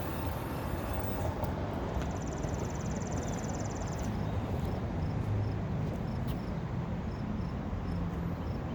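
Wind rumbling on the microphone, with a brief fast high-pitched buzz about two seconds in.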